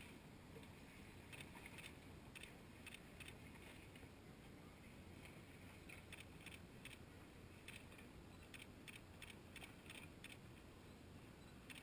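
Faint, irregular ticking and small slaps of river water lapping against the hull of a moored boat, over a low steady hum of near-quiet riverside air.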